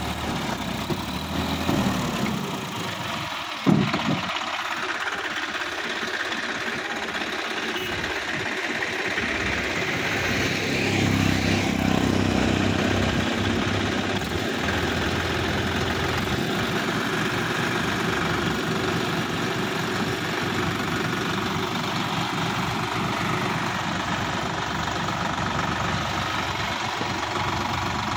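Sonalika tractor's diesel engine running steadily, with one sharp thud about four seconds in and the engine getting louder for a couple of seconds around twelve seconds in.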